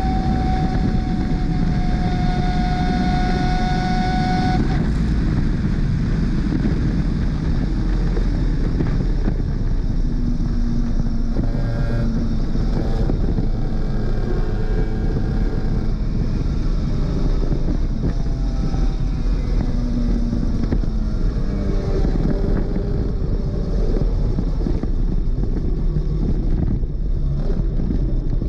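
Superkart's 250cc two-stroke engine running hard at a high steady pitch, over loud wind and road noise. About five seconds in, the high note drops away and the engine runs on at a lower, changing pitch.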